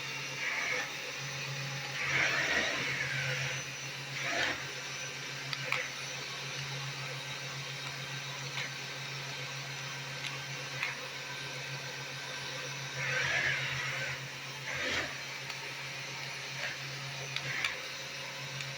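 Small electric motor in an inflatable remote-control Stitch toy running steadily with a low hum, with a few short louder whirs about two seconds in and again around thirteen seconds in, plus scattered light clicks.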